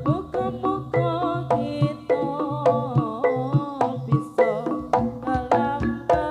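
Jaranan gamelan music: quick hand-drum strokes at a steady beat under a wavering lead melody, with low sustained gong tones.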